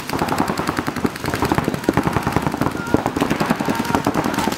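Several paintball markers firing rapid, overlapping strings of shots, a dense crackle of pops with no let-up.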